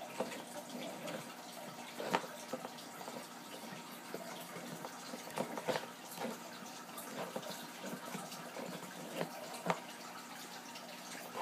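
Handling noise from hands moving and posing a resin ball-jointed horse doll close to the microphone: scattered light clicks and knocks over a steady hiss, the sharpest about two seconds in and near the end.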